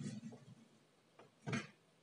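Knife blade slicing down through a ball of kinetic sand, a faint scraping at first and a short, louder burst of cutting about one and a half seconds in as the blade goes through and pieces break away.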